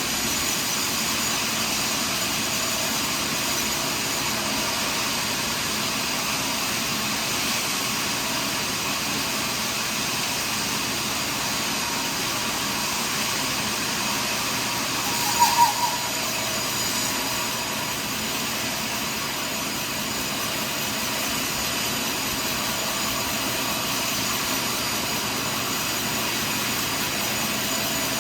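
Sawmill machinery running steadily while sawing through a large pine log, a continuous loud whine-and-hiss of the saw and its motor. About halfway through come three quick sharp knocks.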